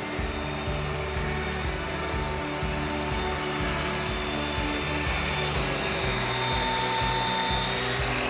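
Background music with a steady bass line over the steady whine and hiss of a corded electric hand tool running along a rough timber beam, smoothing its surface.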